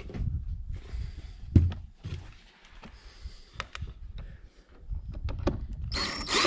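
Knocks and clicks of hardware and tools being handled during the trolling-motor mount installation, with one heavier thump about one and a half seconds in and a burst of hiss near the end.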